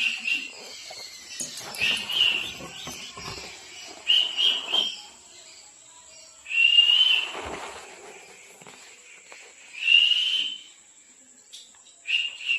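Pet parrot giving a series of short, shrill, high-pitched whistling calls, about six of them, each under a second long, spaced roughly two seconds apart.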